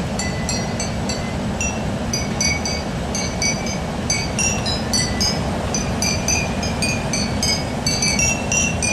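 Glass water bottles filled to different levels being struck one after another, ringing out a quick tune of bright glassy notes over a steady low rumble.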